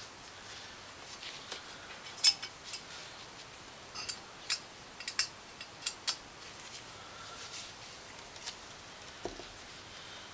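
Small steel nuts and washers clicking and clinking against each other and against the studs and fins of an aluminium cylinder head as they are handled and fitted. The sharp clicks are scattered, most of them between about two and six seconds in.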